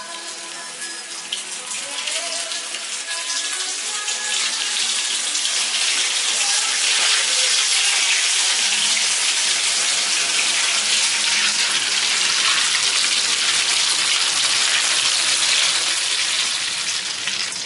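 Breaded potato pieces frying in hot oil: a dense sizzle full of fine crackling that builds over the first few seconds and then holds steady.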